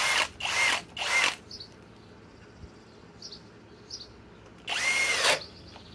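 Master Force Boost cordless hammer drill with a 1 1/4-inch Speedbor spade bit, on high speed, whining in short half-second bursts as the trigger is pulled: three quick ones in the first second and a half, another about five seconds in. Each whine rises and drops as the bit stalls in the wood. The drill can't turn this bit at speed two and keeps cutting out.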